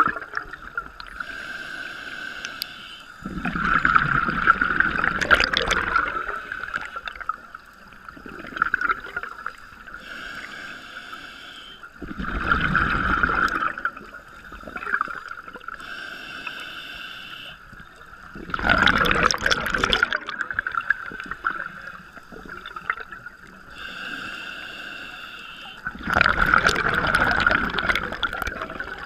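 Scuba diver breathing through a regulator underwater: a hissing inhale, then a loud gurgling burst of exhaust bubbles, four times, about every seven seconds, over a steady high whine.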